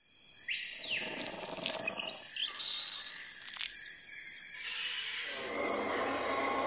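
Jungle ambience sound effect with bird calls and chirps: a short pitched call about half a second in, a few quick chirps around two seconds, and a sharp click near the middle. A fuller, steadier noise comes in after about five seconds.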